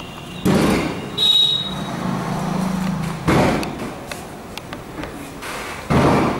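Four sudden loud knocks, the second with a brief high squeal, and a steady low hum between the second and third.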